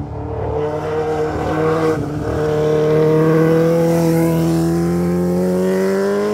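Sport motorcycle engine passing close and accelerating, its note climbing slowly and steadily as it gets louder.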